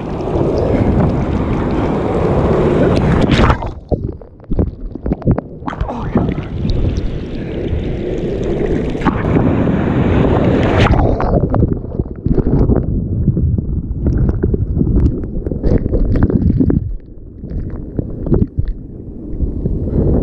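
Breaking surf and whitewater rushing and splashing around a kayak as it is paddled through the waves, with wind buffeting the camera microphone. The sound turns suddenly muffled a few times.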